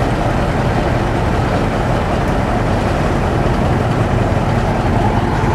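Heavy tow truck's diesel engine running steadily, a low even engine sound with no change in speed.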